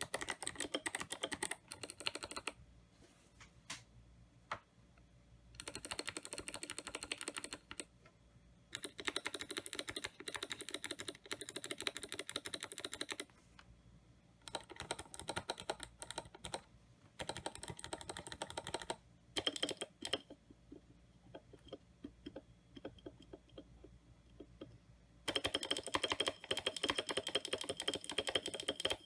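Typing on an IDOBAO ID80 mechanical keyboard fitted with clicky Kailh Box Jade switches. Several runs of fast typing a few seconds long, with scattered single key presses and short pauses between them.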